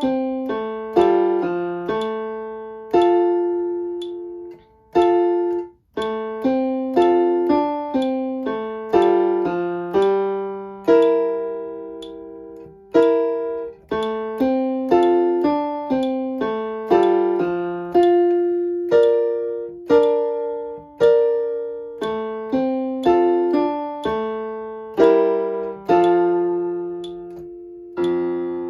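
Piano playing a simple beginner's lesson piece at a slow, steady tempo, mixing runs of quick notes with long held notes left to ring and fade away, with one short break about five seconds in.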